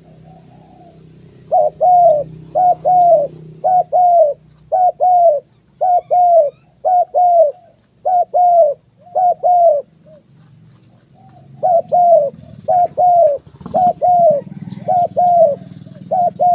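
Spotted doves cooing: a long run of short, loud coos, mostly in pairs, with a pause of about a second and a half partway through.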